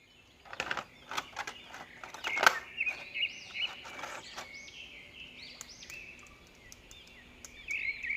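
Small birds chirping over and over in short arched calls, busier near the end. Sharp clicks and taps come in the first few seconds.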